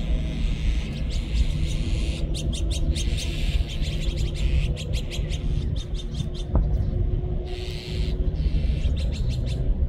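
A flock of azure-winged magpies calling in harsh, rapid chattering bursts, several runs of quick calls over a steady low rumble.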